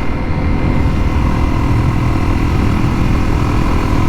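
Honda CRF250L single-cylinder four-stroke engine running steadily under way, at an even speed with no revving.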